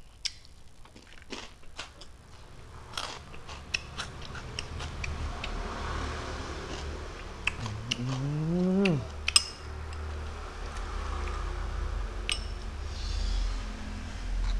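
Close mouth sounds of a man eating rice and boiled beef by hand: wet chewing and smacking clicks, with a short hummed "mmm" that rises in pitch about eight seconds in.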